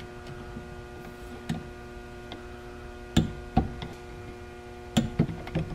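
Torque wrench tightening bolts on an engine's flywheel to 18 foot-pounds: a few sharp clicks, two a little past the middle and a cluster near the end, over a steady electrical hum.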